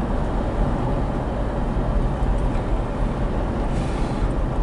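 Steady road and engine noise heard from inside the cabin of a 1996 Buick Roadmaster Estate wagon cruising, a low, even rumble with no change in pace.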